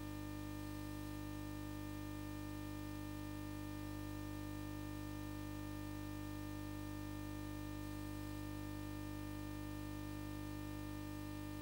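Steady electrical hum with several overtones, unchanging throughout, and no other sound above it.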